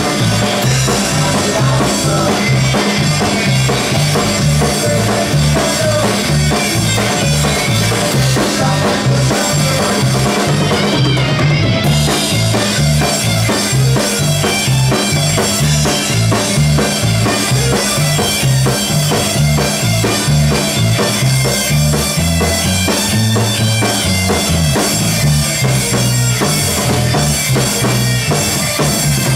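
Live rock band playing loud, with electric guitars over a steady drum kit beat.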